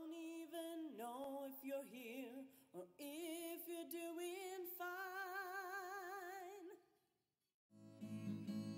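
Wordless, unaccompanied sung vocal line in the film's score, gliding between notes and then holding long notes with a wide vibrato. It stops about seven seconds in, and after a brief gap acoustic guitar strumming starts near the end.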